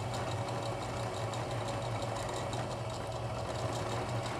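Electric sewing machine running steadily, stitching an appliqué onto fabric: a constant motor hum with rapid needle ticks.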